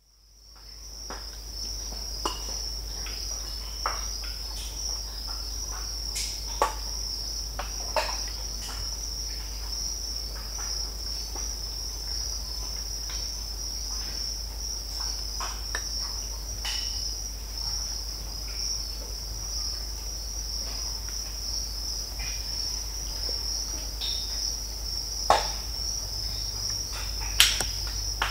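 Mangrove swamp ambience: a steady high-pitched cricket chorus with scattered sharp snaps, cracks and pops from the mangrove trees, a few of them louder than the rest. It fades in over the first second or so.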